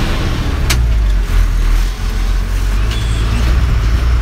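Bus engine running steadily under way, heard from inside the passenger cabin as a deep, loud drone. The drone dips briefly about two seconds in, and a single sharp click comes a little under a second in.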